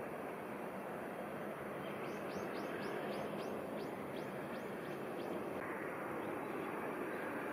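A bird gives a quick run of a dozen or so short, high, falling chirps, about three a second, starting about two seconds in, over a steady rushing noise.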